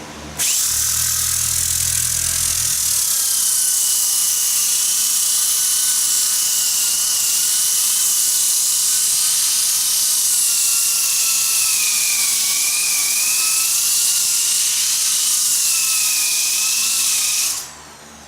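Aggressive power floor sander with 40-grit paper running on wood floorboards, a loud steady hiss with a high motor whine that wavers slightly as it cuts. It starts suddenly about half a second in and stops shortly before the end.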